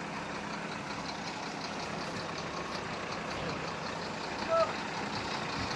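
Heavy road construction machine engine running steadily, with a faint fast high ticking over it and one short chirp-like sound about four and a half seconds in.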